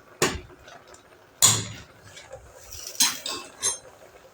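A spoon knocking and scraping against a cooking pot: about five separate clanks, the loudest about a second and a half in.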